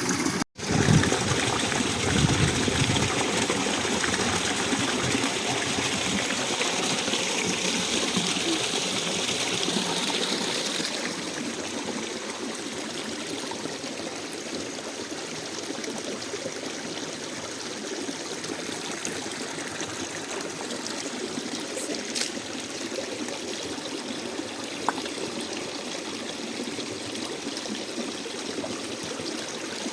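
Mountain stream water running in a steady rush, with a few low knocks in the first seconds; near 11 s the rush becomes a little quieter and duller.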